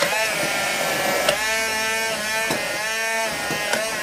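Electric hand blender running at full power in a tall glass, puréeing roasted piquillo peppers with cider vinegar and olive oil into an emulsion. Its whine dips in pitch every second or so.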